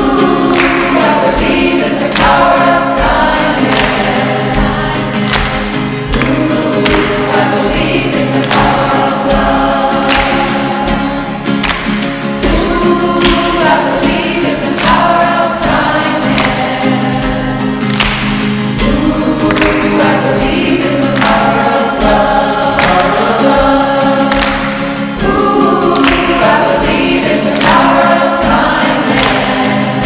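Background music: a song with several voices singing together over a steady beat.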